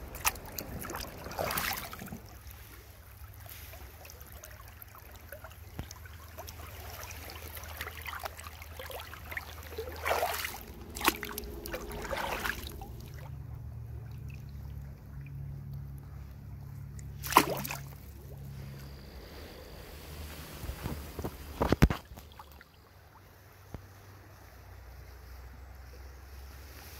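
River water running and trickling, with a low wind rumble on the microphone. Several sudden knocks of handling noise come and go through it as the fish is held at the water's surface.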